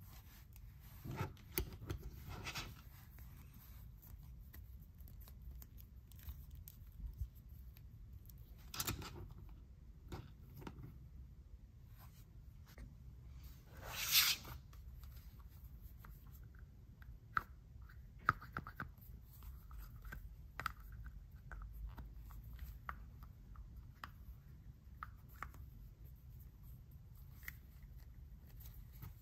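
Plastic toy figures being handled and set down on a tabletop: scattered light clicks and taps with soft rubbing, and one louder scrape about fourteen seconds in.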